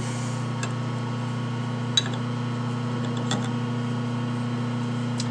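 Light metal clicks and taps from ball-turning fixture parts (a thrust washer and handle) being fitted by hand, with one sharper click about two seconds in, over a steady low machine hum.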